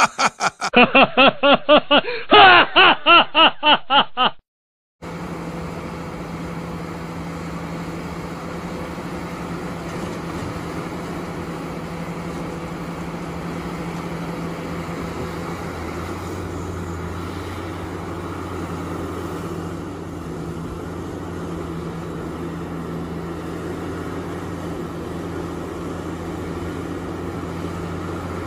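A small child's rapid, pulsing shouts for about four seconds, cut off suddenly. Then a Caterpillar 6015B hydraulic mining excavator's diesel engine runs steadily while it loads a dump truck, and a deeper hum joins about halfway through.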